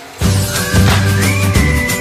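Theme music with a beat, which starts suddenly about a quarter of a second in.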